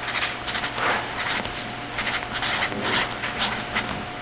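Hand-drawing strokes on a writing surface: short, quick strokes at about four a second, over a faint steady hum.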